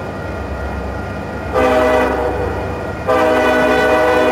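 Union Pacific diesel locomotive sounding its air horn as it approaches, over the low rumble of the train: a first blast about one and a half seconds in, then a second, louder blast starting about three seconds in and still sounding at the end.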